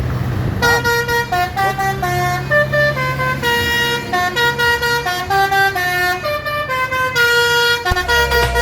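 Bus basuri horn playing a tune: a quick string of stepped notes, one after another, starting about half a second in and stopping shortly before the end, over a low engine hum.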